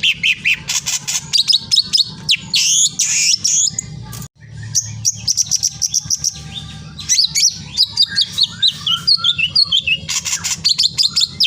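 Many small birds chirping rapidly and continuously, some calls in quick falling runs, over a low steady hum. The sound cuts out for an instant about four seconds in.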